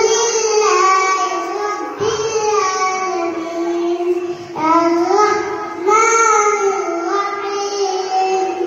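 A young child singing a melodic Qur'an recitation (tilawat) close into a handheld microphone: long drawn-out notes that bend up and down, with short pauses for breath about two and four and a half seconds in.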